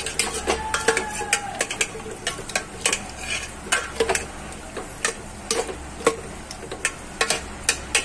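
A steel spoon stirring diced pumpkin in a metal pot, clinking and scraping against the pot two or three times a second, over a soft sizzle of frying.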